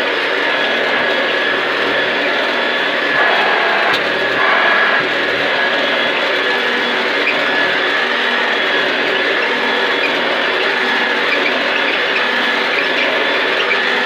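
Hoover Junior U1104 upright vacuum cleaner running on carpet, its motor giving a steady whine. It sounds a bit different from the other one, which the owner puts down to a worn drive belt.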